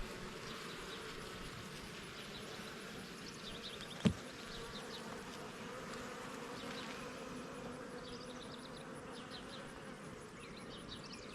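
Honeybee colony buzzing steadily around an opened hive, more active and agitated than this colony usually is. A single sharp knock comes about four seconds in.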